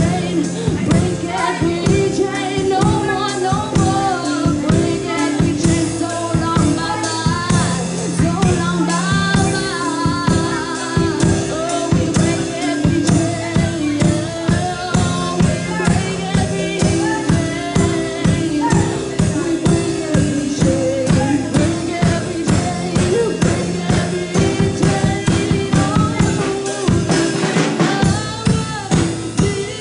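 A woman singing a worship song to her own electronic keyboard accompaniment, with a drum kit keeping a steady beat.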